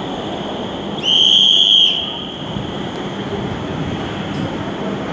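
Metro train pulling into the platform and slowing, with a steady rumble and hum. About a second in, one shrill high-pitched tone sounds for just under a second.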